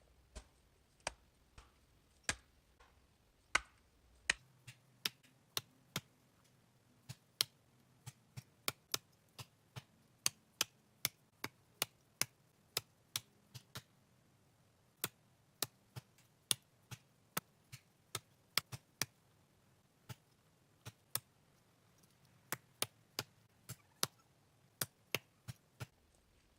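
Axe striking wood in a long, irregular series of short, sharp chops, about one to two a second.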